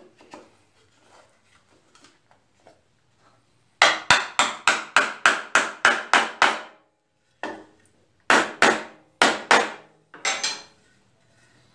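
Small hammer tapping wooden pieces to seat an interlocking joint: a quick run of about a dozen light strikes, roughly four or five a second, then after a short pause a few more strikes in ones and twos. Before the hammering starts there are faint clicks of the wood pieces being handled.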